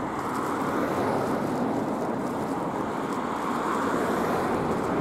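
Cars passing close by on a two-lane road: a steady rush of tyre and road noise that slowly grows louder.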